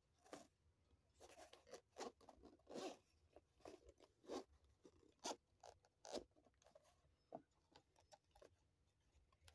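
Zip of a fabric-covered hard-shell watch case being pulled open around the case in a series of short, faint zipping strokes, mixed with handling of the case's fabric shell.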